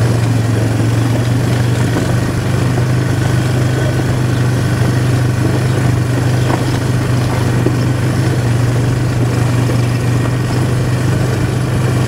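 Quad bike (ATV) engine running at a steady speed, a constant low hum with no change in pitch.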